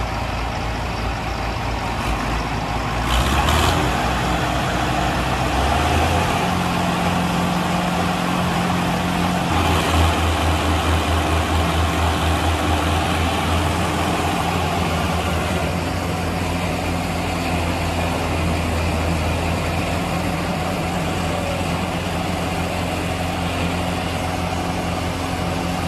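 Tractor diesel engine running steadily, its note stepping up about three seconds in and again around ten seconds in.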